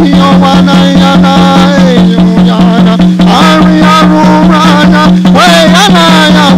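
Background music with a steady beat, a sustained low drone and a melody that slides up and down in pitch.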